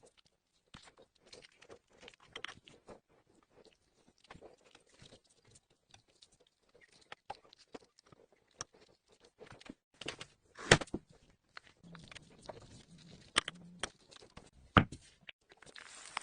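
Kitchen handling noises during food preparation: soft, scattered rustles and light taps, with sharper knocks about eleven and fifteen seconds in.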